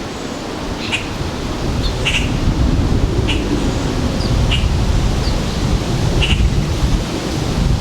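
A bird chirping repeatedly, in short sharp chirps about once a second, with a few fainter higher notes between them, over a steady low outdoor rumble.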